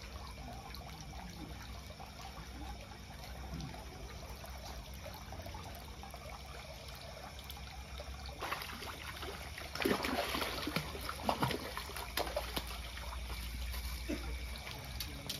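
Water splashing and sloshing at a pond's surface as a hooked bawal (pacu) thrashes and is brought into a landing net. The splashing is loudest with a run of sharp slaps from about ten seconds in, over a steady low hum.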